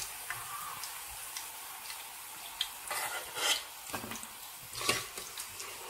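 Cauliflower pieces deep-frying in hot oil, a steady sizzle, with a metal skimmer scraping against the steel pan a few times as the fried pieces are lifted out, around three seconds in and again near five seconds.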